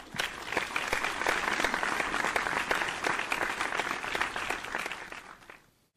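A crowd applauding: dense clapping that starts abruptly and fades away near the end.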